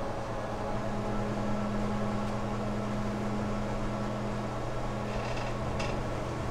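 A steady low hum of a few held tones, with a couple of faint clicks near the end.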